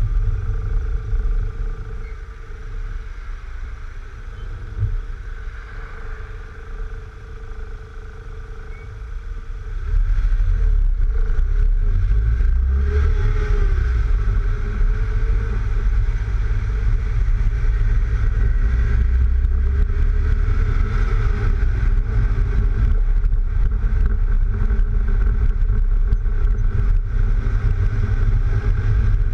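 A lowered Mk3 VW Golf driving on the road, heard from a camera mounted low on its flank. Heavy wind buffeting on the microphone, which the owner puts down to the roof racks, mixes with engine and tyre noise. The buffeting grows much louder about ten seconds in.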